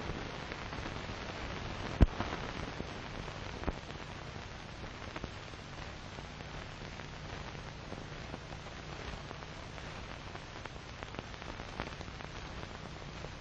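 Steady hiss and crackle of an old film soundtrack with a low hum, broken by scattered clicks and one sharp pop about two seconds in.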